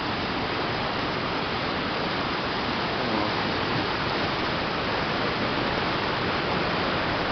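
River in flood rushing through rapids: a steady, even rush of turbulent white water.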